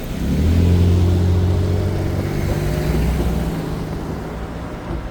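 A heavy engine with a low hum that rises in pitch as it picks up throttle shortly after the start, holds steady, then fades away over the next few seconds.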